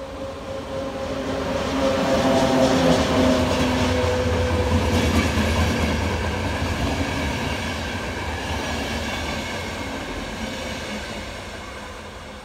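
Electric locomotive and passenger coaches passing at speed. A humming tone from the locomotive swells as it comes by, then the wheels rumble and clatter on the rails as the coaches pass, loudest a few seconds in and fading toward the end.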